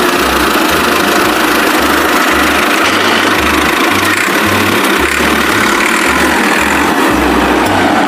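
A small motor running steadily, mixed with background music that has a pulsing bass line.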